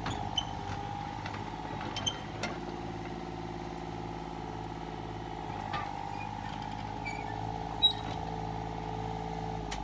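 An engine running steadily at an even speed, with a few short knocks and clinks over it, the sharpest about eight seconds in; the engine sound stops right at the end.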